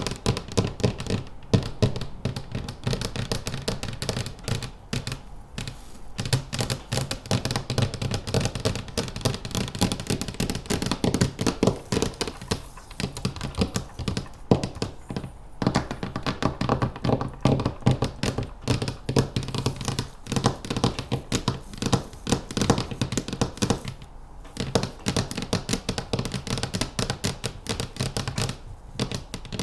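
Rapid, continuous fingernail tapping from manicured nails, many quick taps a second, broken by a few brief pauses.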